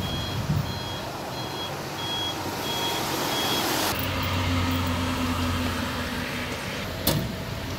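A truck's reversing alarm beeping at an even pace over engine and road noise, stopping about four seconds in. A heavy engine then runs with a steady low hum, and a single sharp click comes near the end.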